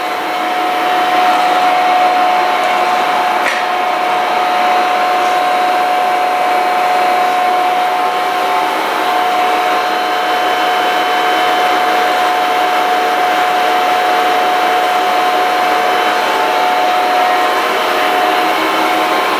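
Dainichi DLG-8 engine lathe running without cutting, giving a steady whine.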